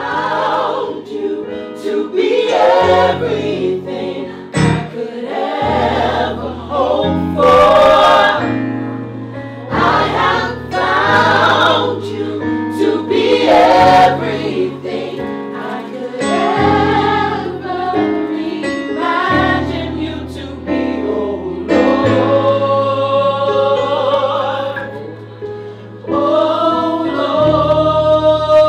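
Gospel vocal group, women and men, singing in harmony over sustained low bass notes that change every second or two.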